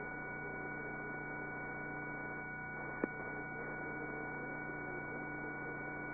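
Faint steady hum with several steady tones on the helicopter's intercom audio line, with a single click about three seconds in.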